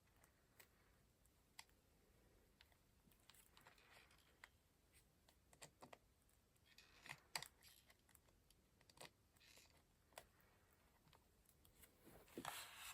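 Quiet paper-craft handling: sparse small clicks and taps, with a few short spells of paper rustling. The sharpest tap comes a little past halfway.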